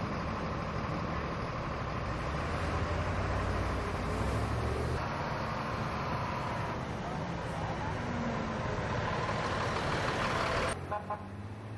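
Vehicle engines and tyres on the road as vehicles drive slowly past, the fire rescue truck's engine coming up and passing close by. The sound drops off suddenly near the end.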